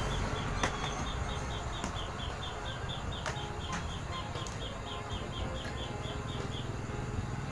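A small calling creature's short high chirps, repeated evenly about four times a second, stopping about a second before the end. A few light knocks of kitchen utensils being handled sound over them.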